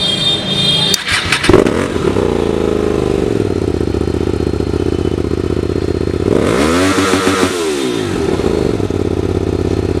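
Hyosung GT250R's 250 cc V-twin engine catching after a brief crank about a second in, then idling. A few seconds later it is revved once, rising and falling back to idle.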